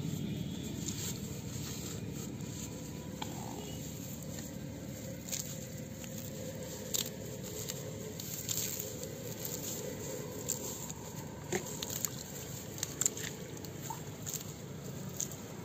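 Bare hands working through grass and wet mud: scattered short rustles, scrapes and small snaps, more frequent in the second half, over a steady low outdoor background noise.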